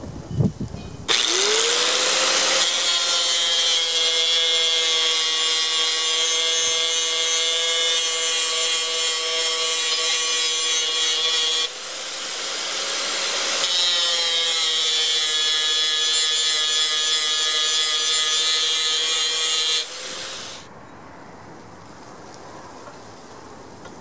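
Electric angle grinder with a cut-off disc spinning up and cutting through a steel bracket on the mower lift's frame: a steady high motor whine under a loud grinding hiss. The disc eases off the metal for a couple of seconds just before halfway and then bites again. Near the end the grinder is switched off and winds down.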